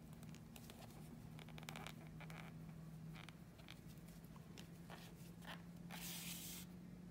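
Faint scratching and rustling of acrylic-looking crocheted yarn being handled as a needle is worked through the stitches, a string of short scrapes with a longer rustle about six seconds in. A low steady hum runs underneath.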